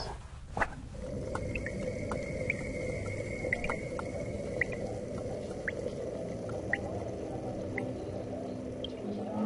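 Steady watery noise with scattered short drip-like ticks, starting about a second in; a low steady tone comes in at the very end.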